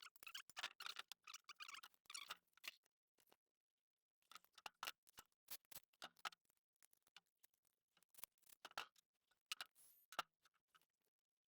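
Near silence broken by faint, irregular clicks and light rustling in scattered clusters.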